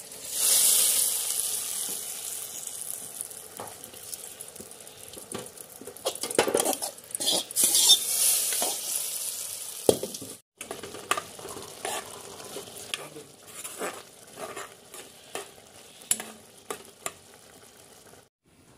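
Spices sizzling in hot oil in a steel pan while a wooden spatula stirs and scrapes them. After a cut about ten seconds in, a steel ladle clinks and scrapes in the pot of cooked dal.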